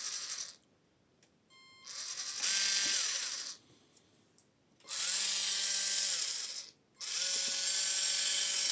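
Electric motor spinning a WPL two-speed RC gearbox in short bursts of throttle: each run winds up to a steady whine with gear whir, holds for a second or so, then winds down. A run fades out just after the start, then come three more with brief quiet gaps between them.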